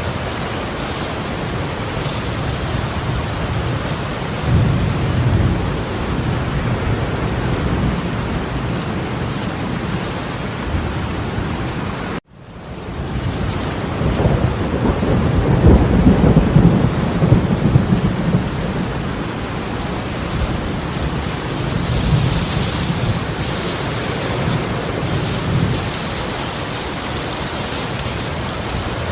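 Torrential rain pouring steadily, with deep rumbling swells a few times, loudest about fifteen to eighteen seconds in. The sound cuts out abruptly for a moment about twelve seconds in, then fades back up.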